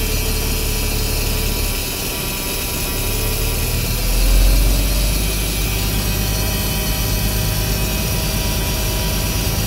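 Old Cummins diesel in a Western Star semi truck idling shortly after a cold start, not yet warmed up. It runs steadily and swells briefly about four seconds in.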